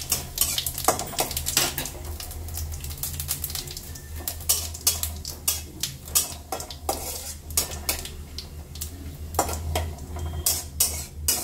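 Metal spatula clinking and scraping against a metal kadai with irregular sharp clicks, as it stirs whole spices frying in hot oil with a light sizzle.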